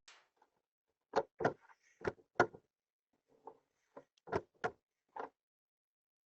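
An irregular series of about ten short knocks and clicks, a few in quick pairs, between quiet gaps.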